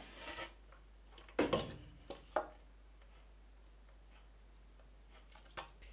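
Quiet room tone broken by one knock about a second and a half in and two light clicks just after: a planed wooden board and a caliper being handled on the machine's table.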